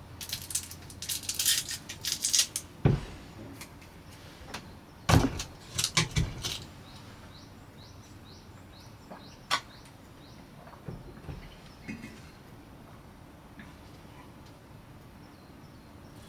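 Things being handled: a burst of rustling, then a few sharp knocks and clicks, loudest about five seconds in, thinning out to scattered single clicks.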